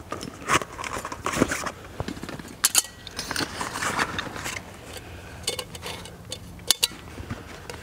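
Camping gear being handled: a metal billy can in its cloth bag and a steel flask picked up and set down, giving scattered light knocks and clinks over soft rustling of canvas.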